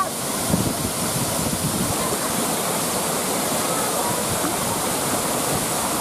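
Waterfall pouring into a rocky plunge pool close by: a steady, unbroken rush of falling water.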